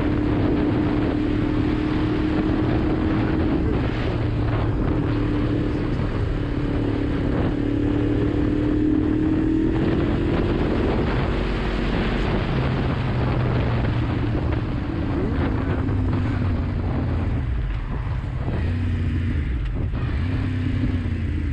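Yamaha MT-10's inline-four engine running steadily under way, its note rising a little about ten seconds in and then settling lower. Wind rushes over the microphone throughout.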